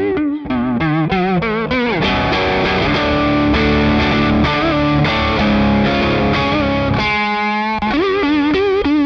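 Electric guitar played through an EarthQuaker Devices Aqueduct vibrato pedal in triangle-wave mode. The vibrato is switched in momentarily: wavering notes for the first two seconds, then held chords at a steady pitch, a brief fast wobble about seven seconds in, and the wavering returns near the end.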